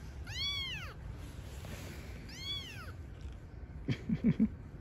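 Kitten meowing twice, two short high-pitched calls that rise and fall, the second about two seconds after the first. A few soft low knocks or rustles follow near the end.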